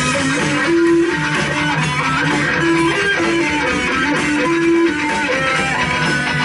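Live instrumental rock trio playing: electric guitar with bass and drums, the guitar holding sustained notes over a dense, washy band sound.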